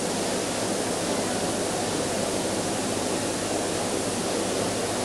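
Steady, even hiss-like noise with no distinct events: old videotape hiss with a faint low hum, over the background of a large indoor arena audience.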